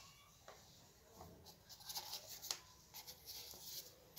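Faint, scattered light clicks and rustles as a Trayal PM1 rubber half-mask respirator and its head straps are handled.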